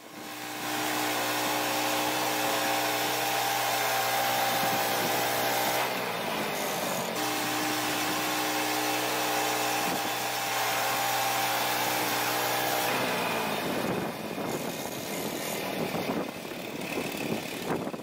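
Engine-driven Woodland Mills HM122 portable bandsaw mill running steadily as its band blade cuts lengthwise through a spruce cant, sawing 2x10 boards. About three-quarters of the way through it gets quieter and less steady.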